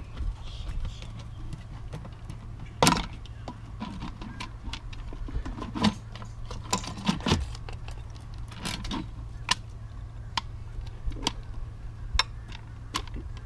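Irregular sharp plastic knocks and clicks as the lid assembly of a Lectrasan marine toilet treatment unit is worked loose and lifted off its housing, the loudest knock about three seconds in. A steady low hum runs underneath.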